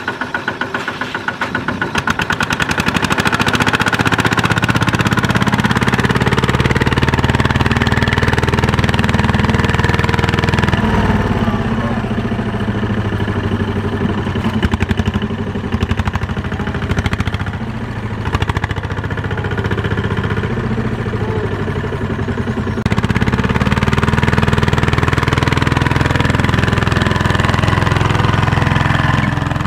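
Single-cylinder diesel engine of a walk-behind two-wheel tractor running hard under load, its firing fast and even, as the tractor strains to pull its loaded trailer through deep mud. The engine revs up about two to four seconds in, and its level shifts twice later on.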